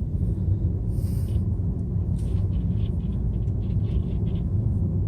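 Steady low road and engine rumble heard from inside a car, with faint, irregular scraping from the vehicle ahead, whose mud flap is dragging on the pavement.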